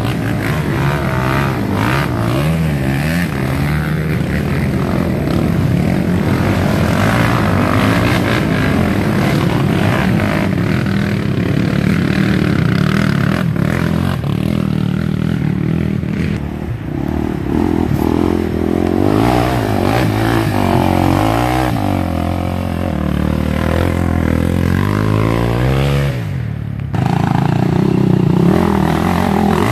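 Sport quad ATV engines revving up and down as racers ride past on a dirt trail. The sound dips briefly near the end, then one quad comes in loud as it approaches.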